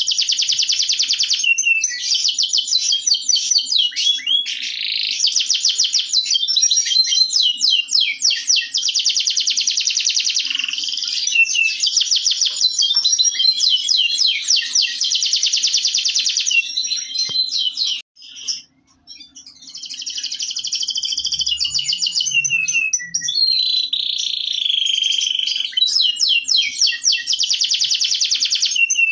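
Domestic canary of the Indonesian 'kenari lokal' type singing a long, loud song of rapid trills and rolls, with a short break about two-thirds of the way through before it resumes.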